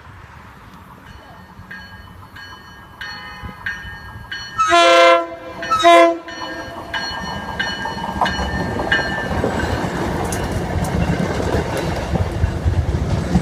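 Commuter rail train horn: one long blast about four and a half seconds in, then a short blast, as the train runs through the station without stopping. A repeated ringing tone, about three every two seconds, comes before and after the horn. The rumble and clatter of the passing train builds through the rest.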